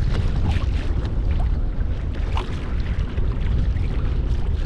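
A boat on open water: a steady low rumble with wind buffeting the microphone and short splashes of water against the hull.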